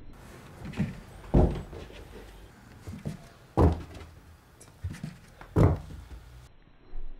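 Bengal cats jumping and landing in play, making a series of dull thumps: three loud ones about two seconds apart, with softer ones between.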